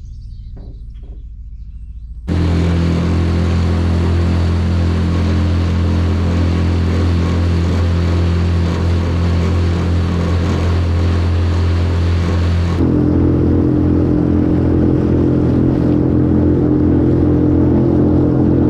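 Jon boat's outboard motor running steadily under way. About two seconds in it suddenly becomes much louder, and about thirteen seconds in its tone shifts, the higher hum coming forward and the hiss dropping away.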